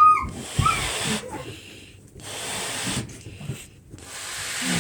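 A balloon being blown up by mouth: repeated long puffs of breath into it, about one every second and a half to two seconds, with a short squeaky glide at the start.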